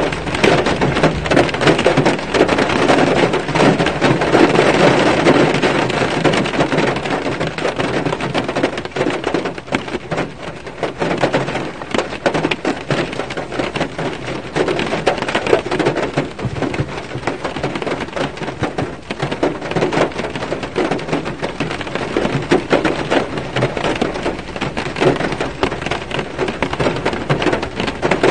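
Rain falling on a car's roof and windshield, heard from inside the car: a dense, uneven spatter of countless drop impacts.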